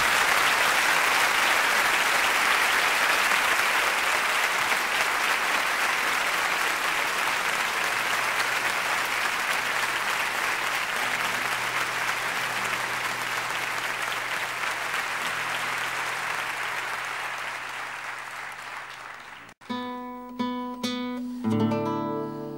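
A concert audience applauding at length, slowly dying away. After an abrupt cut about 19 seconds in, an acoustic guitar starts plucking single notes and chords, the opening of a song.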